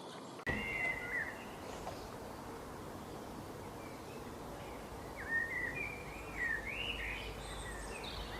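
A small bird singing warbling phrases of quick up-and-down whistled notes: a short phrase about half a second in and a longer run in the second half, over a steady background hiss.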